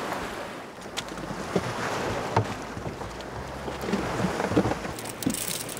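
Sea waves washing against a rocky shore, with wind on the microphone and a couple of sharp knocks.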